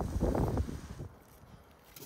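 Crisp cabbage leaves crunching and crackling as they are pulled apart by hand, going quiet about a second in.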